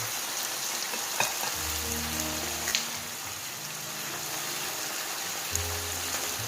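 Food frying in hot oil, a steady sizzle, with two sharp clicks about a second in and near the three-second mark.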